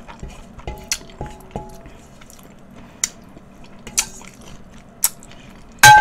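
A spoon scrapes and taps on a stainless-steel plate, giving several short clinks that ring briefly. The loudest clink comes just before the end.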